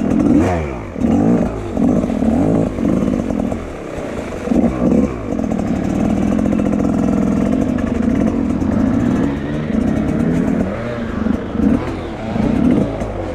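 Enduro dirt bike engine heard from on board, revving up and down in short bursts of throttle, with a steadier held stretch of several seconds in the middle.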